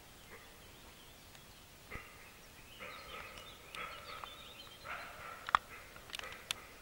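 A deer giving several short alarm barks as it flees into the trees, with a sharp click about five and a half seconds in.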